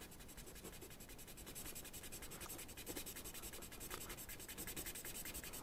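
Pencil eraser rubbing back and forth on the writing surface of a tape measure's case, faintly, erasing a pencilled figure.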